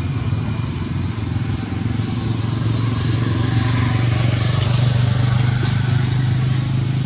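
A motor vehicle engine running steadily. It grows louder through the middle and eases off toward the end, as when a vehicle passes by.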